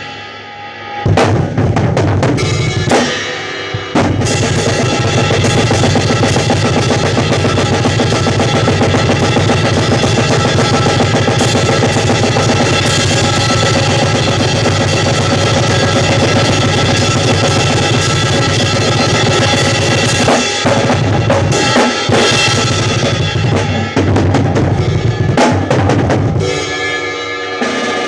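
Drum kit played with bass drum, snare and cymbals during a sound check. A few separate hits come in the first few seconds, then continuous playing, which stops near the end and leaves a ringing tone hanging.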